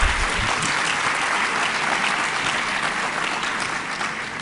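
Lecture-hall audience applauding steadily, the clapping thinning out near the end.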